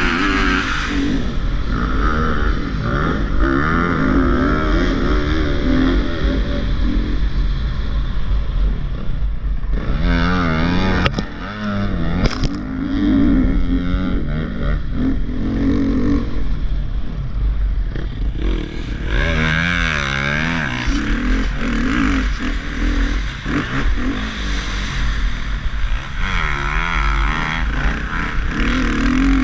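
Motocross bike engine being ridden hard, its revs rising and falling over and over as the throttle is opened and closed, with a steady low wind rumble over the on-bike microphone. A couple of sharp knocks come near the middle.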